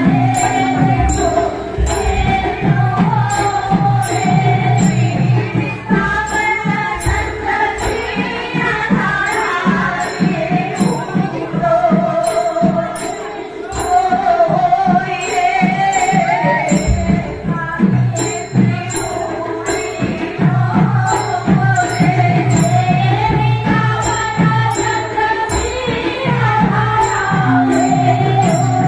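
Manipuri devotional singing accompanied by a drum and small metal cymbals that keep a steady beat, with a sharp cymbal clash about twice a second.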